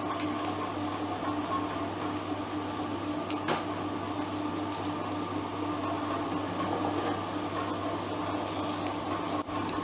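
Steady electrical hum with hiss, with one short click about three and a half seconds in.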